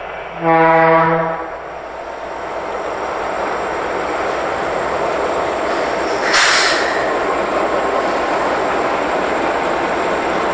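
A locomotive horn sounds one short blast of about a second, then a train runs by with a steady rumble and rush that grows louder, with one brief sharp noise burst about six seconds in.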